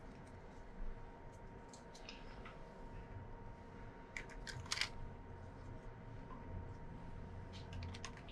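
Light plastic clicks and clacks as hollow plastic letter shapes are set down one by one on the metal cutter discs of a shredder, in small clusters a few seconds apart, over a faint low hum.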